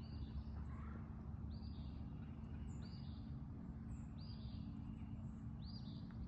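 A songbird calling outdoors, one arching high note repeated about every second and a half, over a steady low background rumble with a faint hum.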